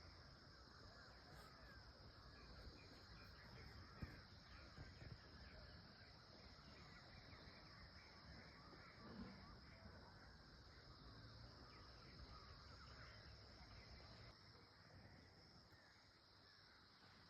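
Near silence: faint outdoor ambience with distant bird calls over a steady high hiss.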